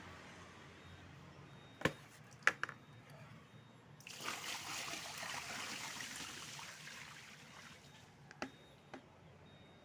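Water splashing and pouring out for about four seconds as it is scooped out and drained. Before it come three sharp knocks, and two more follow near the end.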